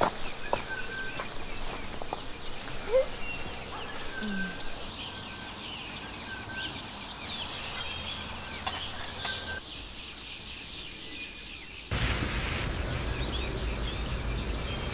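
Woodland birds singing, short high chirps and whistled notes over a soft background hiss, with a few light knocks. About twelve seconds in, the background changes abruptly to a louder, steady hiss.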